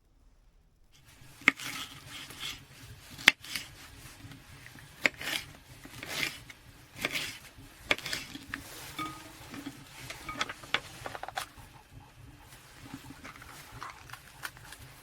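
Irregular clinks and knocks of camping gear being handled, starting about a second in, with the two sharpest knocks soon after.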